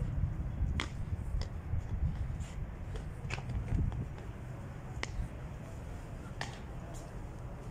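Sharp clicks, about seven at uneven spacing, over a low steady rumble.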